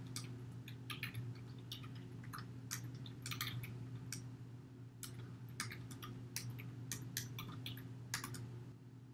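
Typing on a computer keyboard: irregular key clicks with short pauses between runs, over a steady low hum.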